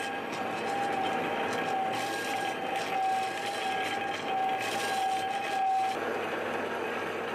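Metal lathe parting off a steel cylinder, the ground parting tool in the cut. A steady high-pitched whine rides over the lathe's running noise and stops abruptly about six seconds in, leaving a rougher scraping noise.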